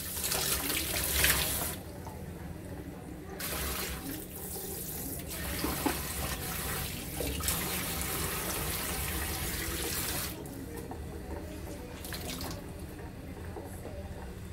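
Water from a pull-down kitchen faucet running into a stainless steel sink, splashing as hands rinse and wipe the basin. The hiss of the water comes and goes in several spells and stops for good a couple of seconds before the end.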